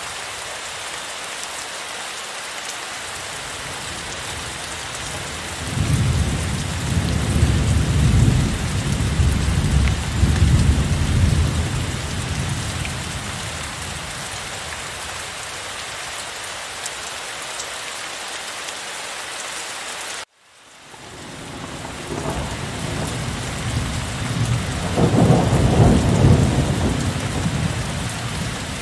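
Heavy rain falling steadily, with two long low rolls of thunder, the first starting about six seconds in and the second building a few seconds after the sound cuts out abruptly for a moment about two-thirds of the way through and fades back in.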